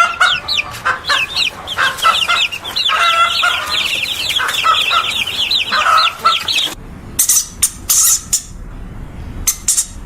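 A flock of chickens clucking and cheeping, with many rapid high calls overlapping for about six and a half seconds. It cuts off abruptly, and a few sharp clicks follow over a low rumble.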